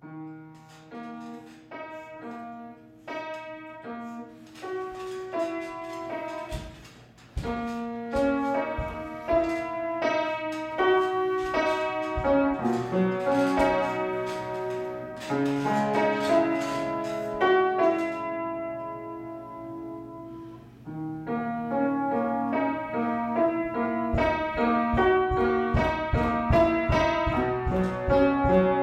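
Upright piano played solo, starting soft and building to louder, fuller chords. After a short quiet dip, rapid repeated low bass notes come in near the end.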